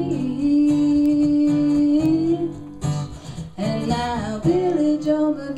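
Acoustic guitars strumming a slow ballad while a woman sings, holding one long steady note before a dip about three seconds in, then a shorter phrase that bends up and down.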